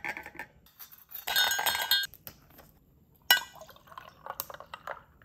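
Plastic zip-top bag crinkling as a sandwich is taken out. About three seconds in comes a sharp click as a plastic bottle cap is twisted off, then juice pours and splashes into an enamel metal mug.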